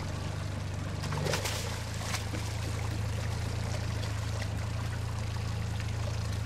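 Honda outboard motor idling with a steady low hum, its pitch shifting slightly about a second in, while a hooked roosterfish thrashes at the surface, splashing water. A short burst of splashing comes between one and two seconds in.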